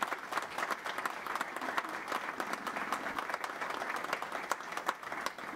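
Audience applauding: many people clapping their hands at once.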